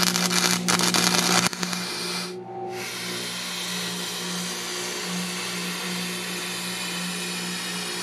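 Stick-welding arc burning on a steel frame brace, crackling loudly for the first second and a half, breaking off briefly about two and a half seconds in, then restruck and burning steadily. A steady low hum runs underneath.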